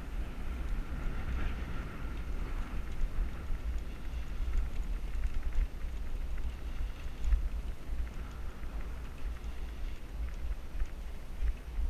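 Wind buffeting the microphone of a moving action camera: an uneven low rumble with a faint hiss above it.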